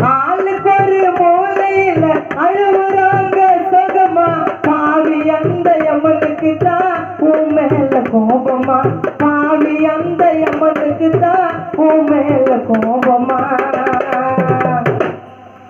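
Chennai gana song: a man singing long, wavering held notes into a microphone over two dholak drums playing a fast, steady rhythm. The music drops away near the end.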